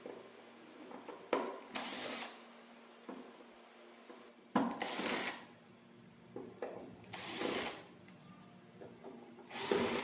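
Small electric power driver run in four short bursts of about half a second each, a few seconds apart, some starting with a sharp click.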